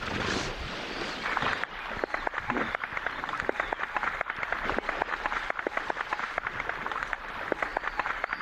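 Male hippo spraying dung by flicking its tail: a rapid, irregular spattering that starts about a second and a half in, a territorial scent-marking display.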